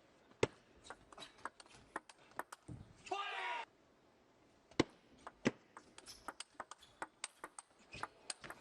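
Table tennis ball clicking sharply against paddles and the table, in a run of separate ticks, with one short voice shout about three seconds in.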